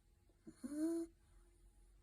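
A sleeping dog snoring: one short snore with a clear pitch that rises slightly, about half a second in.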